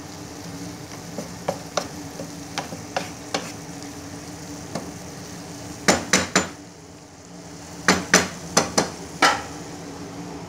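Wooden spatula stirring sautéed eggplant and zucchini in a nonstick frying pan, knocking against the pan. Light taps come first, then two clusters of louder knocks about six and eight seconds in, over faint sizzling and a steady low hum.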